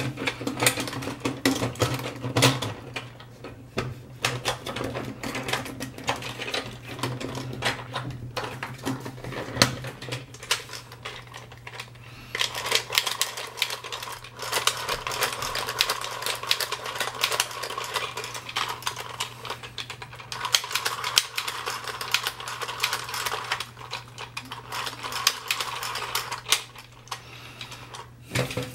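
Dense, rapid plastic clicking and clattering of a toy being handled and worked. A low steady hum lies under it for about the first ten seconds.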